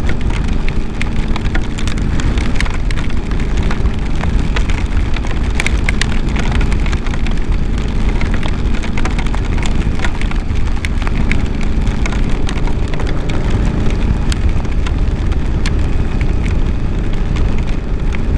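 Motorcycle riding through heavy rain: a steady rumble of engine and wind, with many sharp ticks of raindrops striking close to the microphone.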